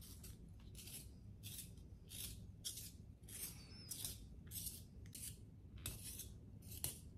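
Blackwing One-Step long-point sharpener's steel blade shaving a coloured pencil as the pencil is twisted in it: faint dry scraping in short strokes, about one every half second.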